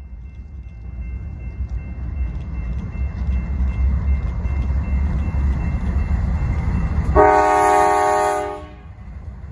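CN diesel freight locomotive approaching, its engine and wheels rumbling louder and louder, then one short blast of its multi-note air horn, about a second and a half long, some seven seconds in.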